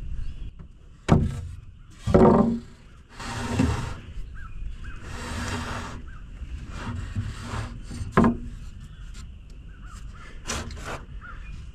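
A lumber board being worked along wooden roof trusses, with a few knocks of wood on wood and stretches of scraping in between.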